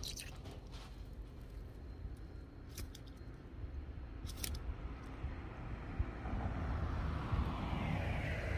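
A car approaching along the road, its tyre and engine noise rising steadily from about six seconds in, over a constant low rumble. A few sharp clicks come earlier, in the first half.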